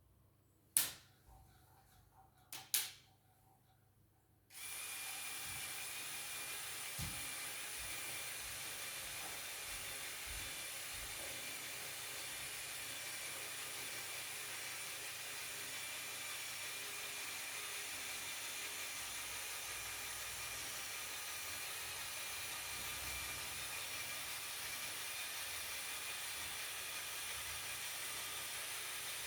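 Two sharp clicks, then from about four seconds in a steady whirring hiss with a thin high whine that runs on without change: a small motor running.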